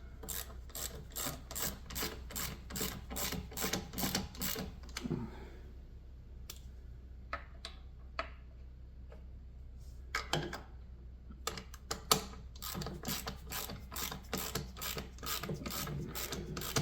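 Hand ratchet wrench clicking in even runs of about three clicks a second as the bolts on an outboard motor's water pump housing are snugged down a little at a time, with a pause of a few seconds in the middle.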